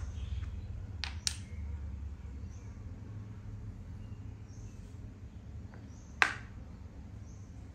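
Plastic makruk (Thai chess) pieces clicking against the board as they are moved by hand: two quick clicks about a second in and a sharper one about six seconds in, over a low steady hum.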